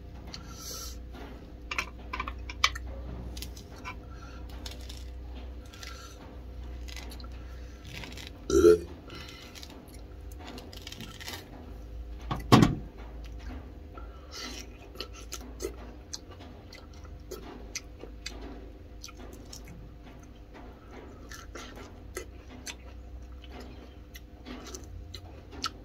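Eating and food-handling sounds: pomelo and egg peeled by hand, chewing and small clicks of tableware, over a steady low hum. A short voiced mouth sound comes about eight and a half seconds in and a sharp knock about twelve and a half seconds in.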